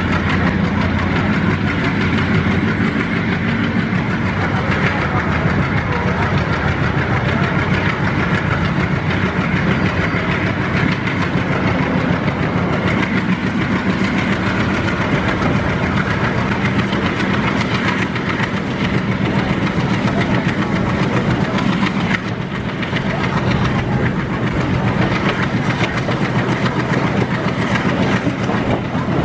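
A passenger train running at speed, heard from an open coach doorway: steady wheel-and-rail noise with the clickety-clack of wheels over rail joints, under the steady drone of the hauling ALCO-design WDM3D diesel locomotive.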